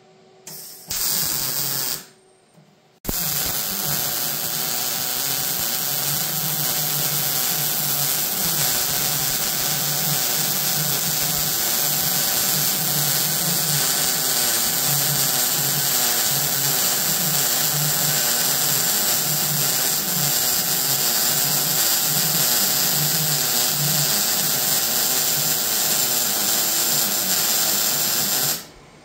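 MIG welder arc running as an eighth-inch steel cap plate is welded onto a Toyota Tacoma frame rail to box it in. A short weld about a second in, a brief stop, then one long continuous weld that stops just before the end.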